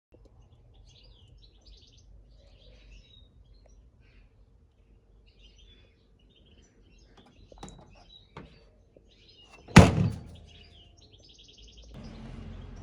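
Birds chirping faintly in the background, two light knocks, then one loud sharp thump about ten seconds in. A steady low rumble starts near the end.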